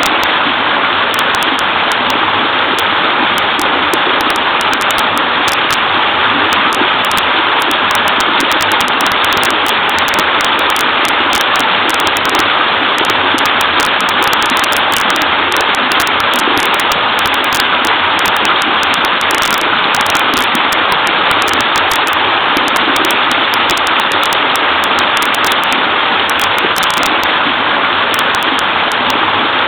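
Small waterfall pouring into a creek: a steady, unbroken rush of splashing, babbling water.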